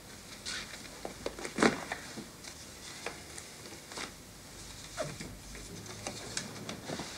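Light handling noises: scattered clicks, rustles and small knocks of objects and papers being moved about at a desk and cabinet, the sharpest about one and a half seconds in.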